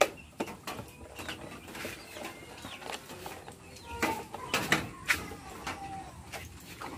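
Scattered clicks and knocks of the plastic headlight cowling on a Honda Supra GTR150 being handled and fitted back into place, busiest about four to five seconds in. Birds call in the background.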